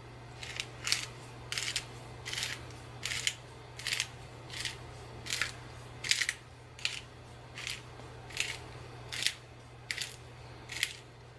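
A black-pepper mill being twisted by hand, grinding peppercorns in about fifteen short, even crunches at a little over one a second.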